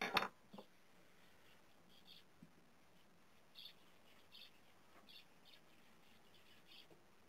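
A sharp knock right at the start, with a smaller one just after. After that, faint short bird chirps repeat every second or so over near silence.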